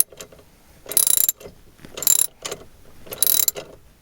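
Socket ratchet wrench clicking in three short runs, about one a second, as an 11/16 nut is tightened down on the steering column.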